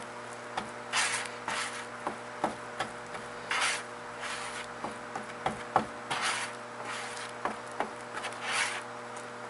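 Plastic spreader scraping and folding fiberglass-reinforced body filler as the hardener is mixed in: irregular rasping strokes, with light ticks between them.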